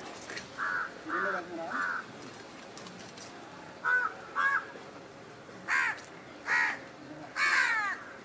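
Crows cawing repeatedly: three caws in the first two seconds, two more about four seconds in, then three louder caws near the end, the last one the longest.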